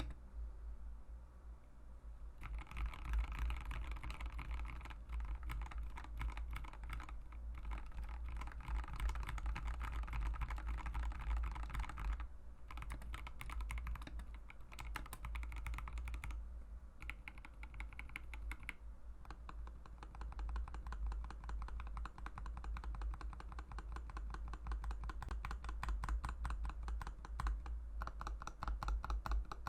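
Mechanical keyboard with Mauve linear switches being typed on in a fast, continuous stream of keystrokes. The typing starts lighter, becomes dense after a couple of seconds, and breaks off briefly a few times.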